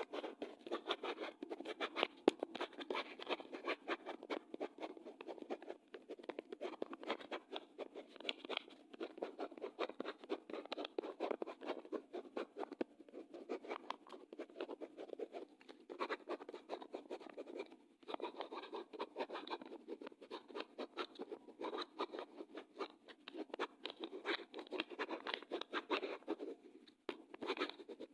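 Pen writing on paper: a run of quick scratchy strokes with short pauses between words or lines.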